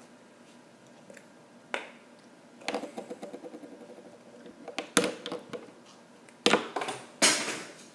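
Scattered clicks, knocks and crackles of small objects being handled, such as containers and a spoon, with louder clatter near the end.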